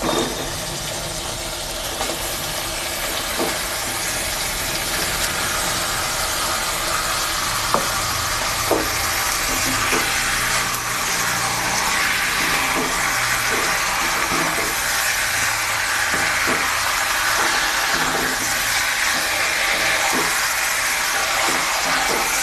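Chicken pieces sizzling steadily as they fry in hot oil with onion paste and spices in a pan, growing a little louder. A spatula stirs them, knocking against the pan now and then.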